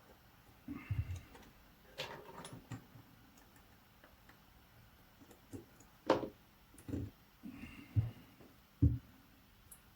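Handling noise: scattered clicks, taps and dull knocks of small tools and parts being picked up and set down on a workbench. The sharpest knock comes about six seconds in, and single dull knocks follow about once a second.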